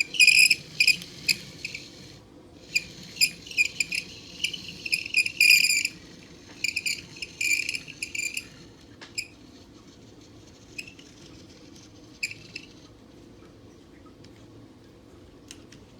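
Toy airplane's electronic sound effect: rapid, high, bird-like chirps in quick clusters, fading and breaking off about two-thirds of the way through, with a few light plastic clicks.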